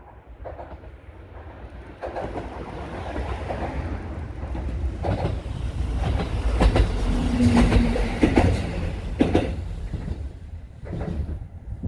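JR Kyushu KiHa 220 single-car diesel railcar passing: a low rumble of the diesel engine and wheels grows louder as it approaches, is loudest in the middle with the wheels clacking several times over rail joints, then fades as it moves away.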